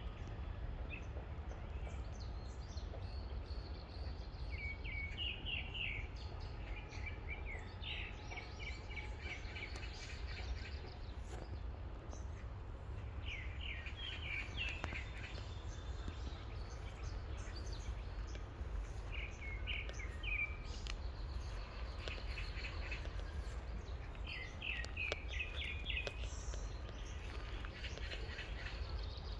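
Bird song: short chirping phrases repeated about every five or six seconds, over a steady low rumble.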